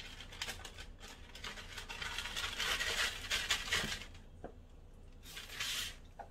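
A sheet of plastic wrap crinkling and rustling as it is pressed and smoothed into an air fryer basket by hand. About five seconds in, there is a short hiss of an aerosol olive-oil cooking spray.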